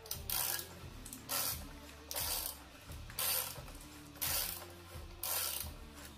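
Hand socket ratchet clicking in six short bursts about a second apart, the back-strokes of a ratchet tightening the plastic oil filter housing cap on a 3.2-litre V6.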